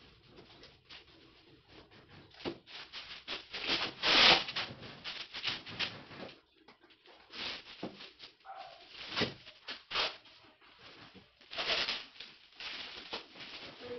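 Plastic wrap crinkling and rustling in irregular bursts as a painting is wrapped by hand, loudest about four seconds in.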